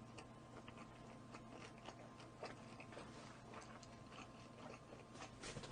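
Quiet close-miked chewing and biting of roast chicken, with scattered small crunchy clicks and mouth sounds.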